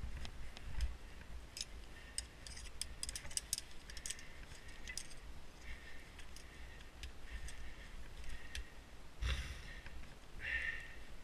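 Climbing gear handled on a rope: small metallic clicks and jingles of carabiners and hardware, with rope rustling and a brief scuff about nine seconds in.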